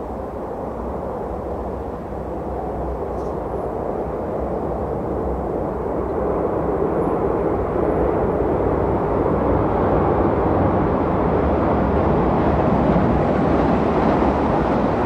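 A train approaching and passing, its rumble growing steadily louder over about ten seconds and at its loudest near the end.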